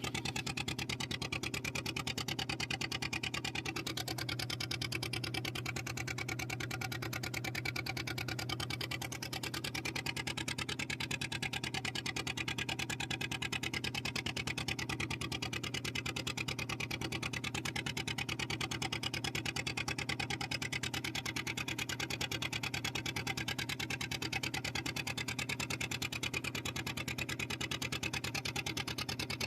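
Fishing boat's engine running steadily while the boat is under way, a low hum with a fast even beat.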